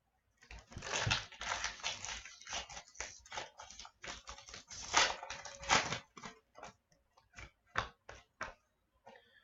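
Crinkling and clicking of a foil trading-card pack being torn open and its cards handled: a dense rustle in the first half that thins to scattered clicks toward the end.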